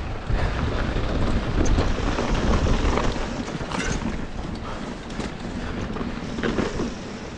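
Wind buffeting a helmet or bike-mounted action camera's microphone during a fast mountain-bike descent, a steady low rush that is loudest in the first few seconds. Under it, knobby tires roll and slide over loose dirt, with a few light knocks from the bike.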